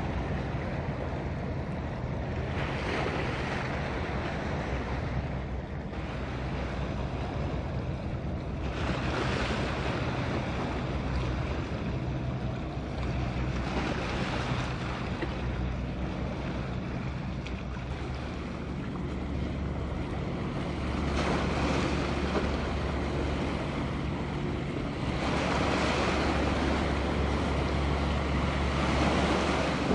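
Wind buffeting the microphone over washing sea water, swelling in several gusts, with a low, steady engine drone underneath.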